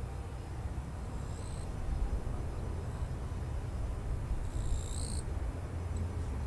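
Low steady rumble of aircraft at the airfield, with two short high-pitched chirps, one about a second and a half in and a longer one near five seconds.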